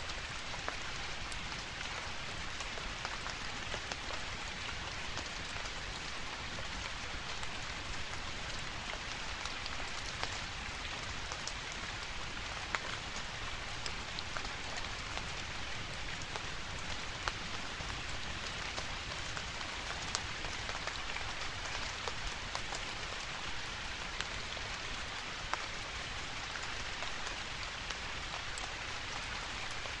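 Steady rain falling on leaves: an even hiss of many drops, with scattered single drops landing closer and louder.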